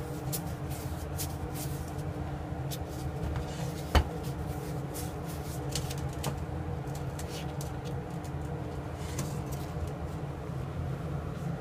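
A 2 kg iron weight knocking once on a tabletop about four seconds in, with light clicks and rustling from gloved hands handling the weights, over a steady low background hum.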